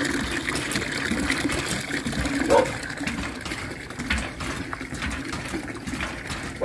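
Water gushing from a hand-worked cast-iron hand pump into a metal bucket as it fills, a steady splashing pour. One brief pitched sound stands out about two and a half seconds in.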